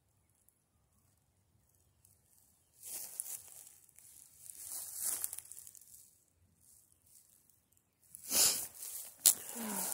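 Dry leaves and grass rustling and crackling in several short bursts, with a sharp click just after the loudest burst near the end.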